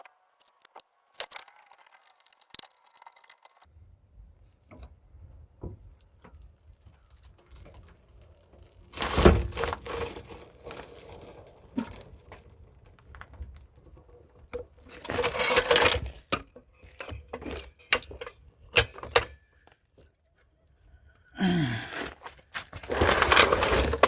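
Clinks and knocks of tools and parts being handled while a wheel is refitted, with three louder rattling bursts of a second or two each.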